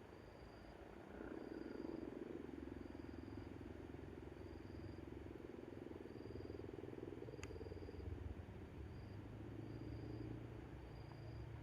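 Insect chirping in short, high, even pulses about once a second, over a louder low rattling drone that swells from about a second in. There is a single sharp click past the middle.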